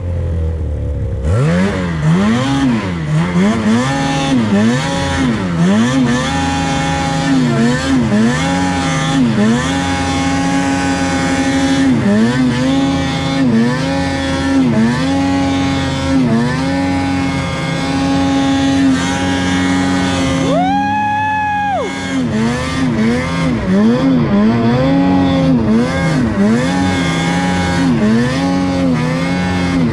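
Ski-Doo Summit 850 snowmobile's naturally aspirated two-stroke twin running hard under load while climbing in deep snow, its pitch rising and falling every second or so as the throttle and track load change. About 21 seconds in it revs much higher for about a second, then drops back to its pulling pitch.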